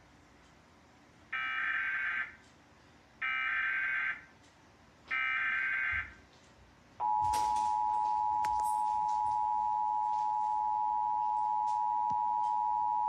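Emergency Alert System tones for a tornado warning: three one-second bursts of screeching digital SAME header data, a second apart, then the steady dual-tone EAS attention signal starting about seven seconds in. A few clicks sound as the attention tone begins.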